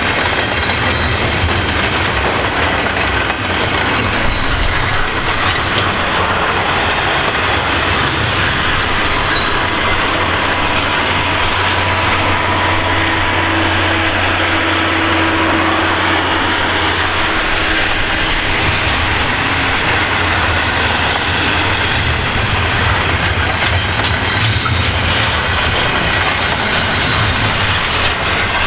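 Double-stack intermodal freight train's well cars rolling past: a steady noise of steel wheels running on the rails, with some clatter.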